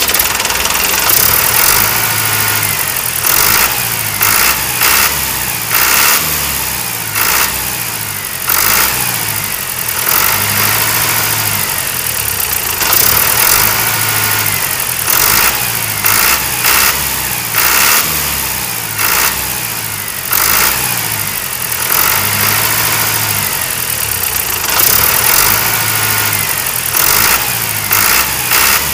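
Tractor engine sound effect: an engine running with uneven throbs and knocks, the same few seconds repeating over and over as a loop.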